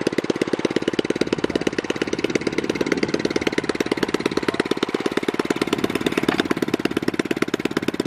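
A small engine idling with a fast, even beat of about a dozen pulses a second, steady throughout.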